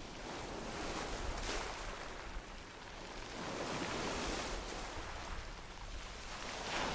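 Sea waves washing in and out over a gravel beach: a steady wash of surf that swells louder about every two to three seconds as each wave comes in, with a hiss reaching high up.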